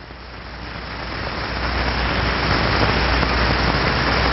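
Rushing-air sound effect: a steady hiss that swells in over the first two seconds and then holds, with a low hum underneath that grows stronger about a second and a half in.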